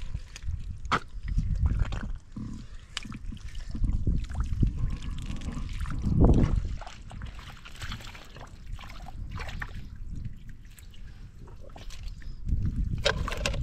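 Hands groping through wet mud and shallow water, squelching and sloshing irregularly, loudest about six seconds in.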